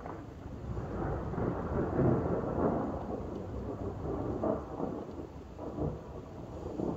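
Thunder rumbling and rolling for several seconds, swelling about a second in and rising to several louder peaks as it rolls on.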